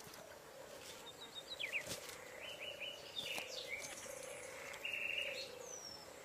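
Birds chirping and calling in short, quick notes, loudest about five seconds in, over a steady low hum.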